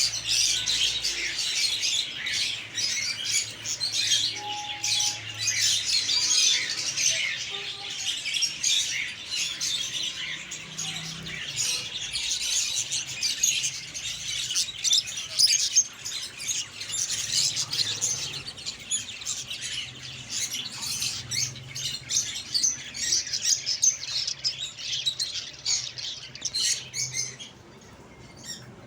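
Dense chorus of many small caged birds chirping and tweeting at once, continuous high-pitched chatter that drops away just before the end.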